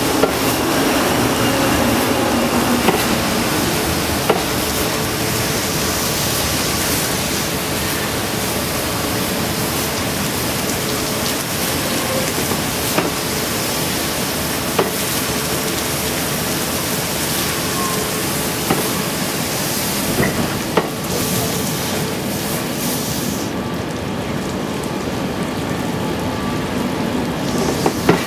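Water jets of an automatic train wash spraying against the side of a slowly passing train: a steady hiss like heavy rain, with occasional sharp clicks.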